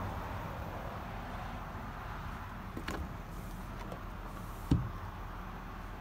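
Steady low rumble inside a pickup truck's cab, with a few light clicks about three seconds in and a single heavy thump near five seconds, the loudest sound.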